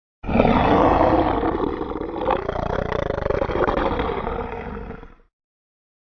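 Thalassomedon creature sound effect: one long, rough roar of about five seconds that starts abruptly and fades out at the end.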